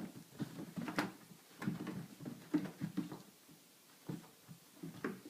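Irregular soft thumps and scuffs with a few sharp clicks, the sharpest about a second in: a cat's paws pouncing and scrabbling on the floor while chasing a laser dot.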